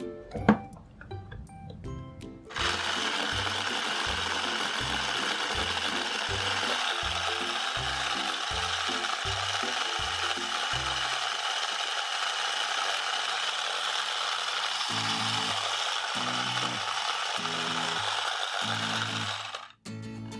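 Miniature toy home appliance running its sound effect: a steady mechanical whirring that starts about two seconds in and cuts off suddenly near the end. Background music with a steady beat plays underneath.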